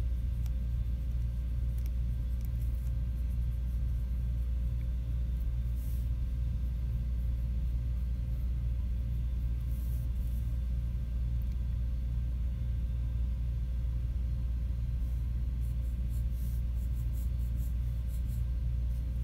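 A steady low rumble throughout, with the faint scratch of a coloured pencil on sketchbook paper a few times, around six and ten seconds in and again near the end.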